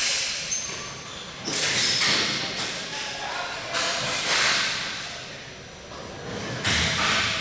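Ball hockey sticks and ball striking during play: about six sharp cracks spaced irregularly a second or so apart, each echoing long in a large arena.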